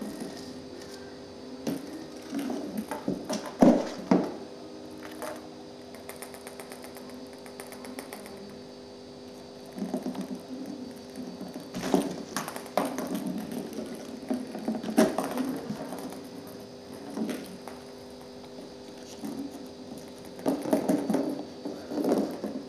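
Cat scrabbling inside a cardboard box and batting at a ping pong ball: irregular knocks and scratching on the cardboard, the loudest knocks about four seconds in and again near twelve and fifteen seconds, over a faint steady hum.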